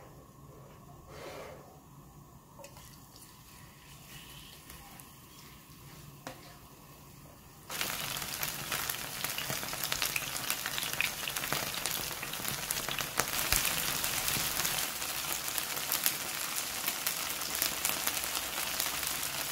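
Korean chive pancake (buchujeon) with mussels and squid frying in hot oil in a pan. It is quiet at first; about eight seconds in a loud, steady sizzling starts suddenly, with dense fine crackling.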